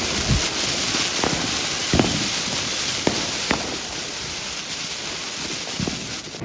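Fireworks: a steady, loud hissing crackle with about half a dozen sharper pops scattered through it.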